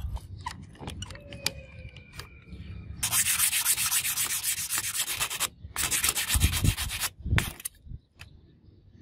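Steel karambit blade edge being hand-sharpened with sandpaper on a wooden stick: rapid back-and-forth rasping strokes in two spells, the first about two and a half seconds long and the second about a second, after some light clicks.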